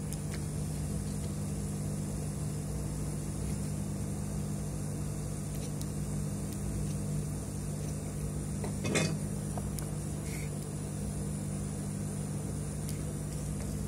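Steady low mechanical hum, as of a small motor or mains-powered appliance running, with one faint click about nine seconds in.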